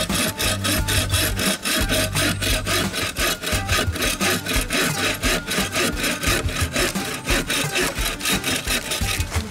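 An EKA Combi Saw 21 bow saw cutting through a dead branch in quick, even back-and-forth strokes, its teeth rasping through the wood.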